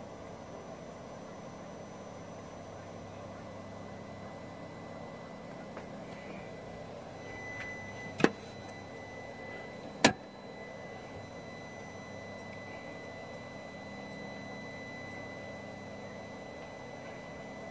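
Steady low hum and hiss of running bench test equipment. A faint high whine joins about seven seconds in, and two sharp clicks come about two seconds apart near the middle.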